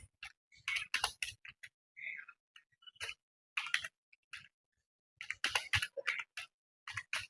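Computer keyboard keys being typed with one finger: irregular runs of sharp key clicks broken by short pauses.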